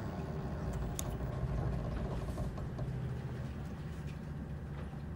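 A low, steady rumble with a few faint, sharp clicks, the clearest about a second in.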